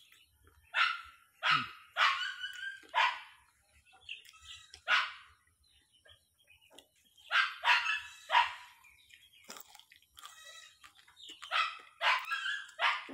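A dog barking: about a dozen short, sharp barks in loose groups, with the loudest runs near the start, in the middle and near the end.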